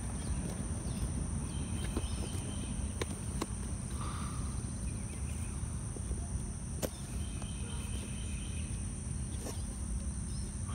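Outdoor ambience: insects droning steadily and high, over a low steady rumble, with a few faint clicks and short chirps.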